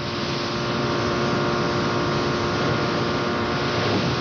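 Motorboat engine running steadily at speed on the water.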